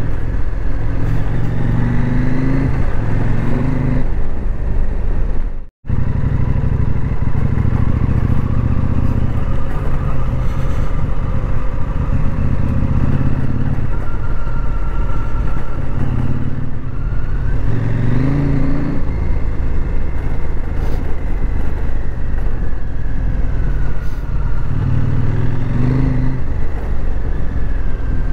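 KTM 790 Adventure R's parallel-twin engine running under way, rising in pitch as it accelerates about two seconds in, around eighteen seconds and again around twenty-six seconds. The sound drops out for an instant about six seconds in.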